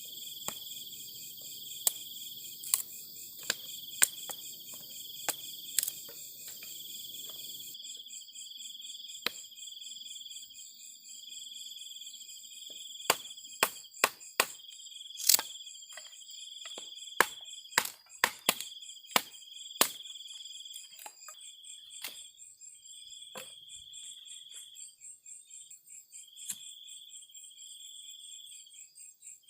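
Night insects chirping steadily, a high-pitched trill that swells and breaks every second or two, with a string of sharp close clicks and snaps scattered through it, thickest in the middle.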